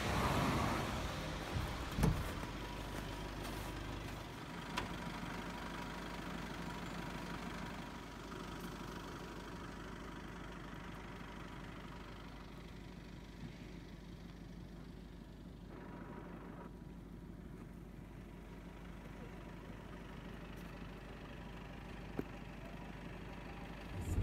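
Steady low engine and road hum heard inside a moving car, with a few faint clicks.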